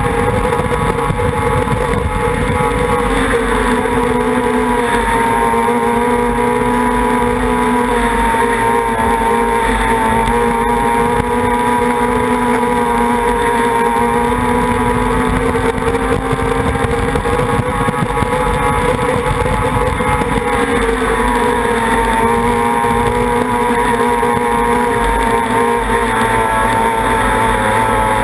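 Racing outboard motor on a tunnel race boat running at steady high revs, its pitch easing off and picking back up a couple of times.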